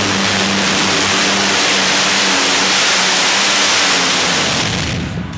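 Unlimited-class pulling tractor with several supercharged engines, running at full power in a loud, steady roar that fades out about five seconds in.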